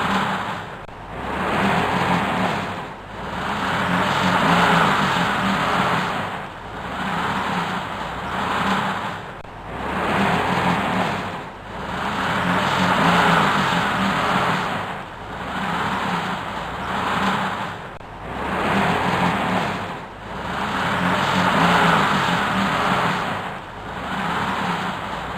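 A vehicle engine revving up and down in repeated swells, about every two to three seconds, as a vehicle stuck in mud tries to pull free.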